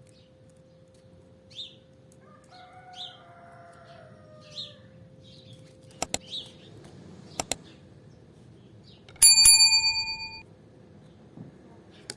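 A single loud ringing strike about nine seconds in, dying away over about a second, with a few short high chirps and two quick pairs of clicks before it.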